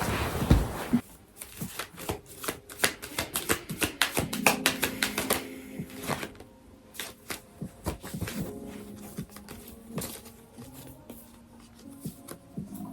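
Tarot cards being shuffled and handled: a dense run of quick card flicks lasting a few seconds, then scattered single taps and slides.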